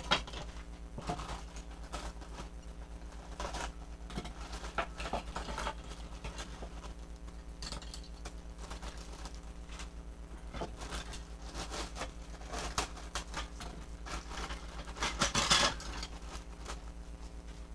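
Clear plastic bags crinkling and crackling as they are torn open and handled, with small plastic toy parts rattling out of them, over a steady low hum. The loudest burst of crackling comes about fifteen seconds in.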